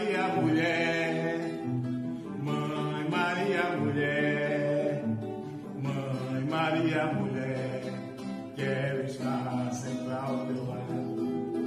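Background music: a sung Brazilian song with instrumental accompaniment, its melody moving in phrases of a second or two.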